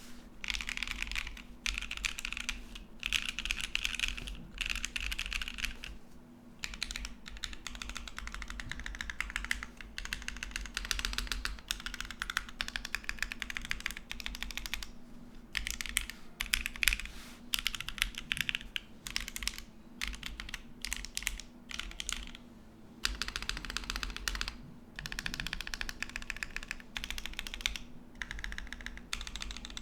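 Fast typing and key rolls on a gasket-mounted Whatever Studios Paper80 mechanical keyboard with Kailh Clione Limacina switches, an aluminium plate, no foam and GMK doubleshot keycaps: dense runs of key clacks in bursts, broken by short pauses.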